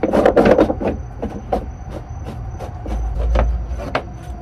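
Battery box cover on a 2006 Freightliner Columbia scraping and knocking as it is handled and slid off: a quick flurry of scrapes in the first second, then scattered sharp knocks, with a low rumble about three seconds in.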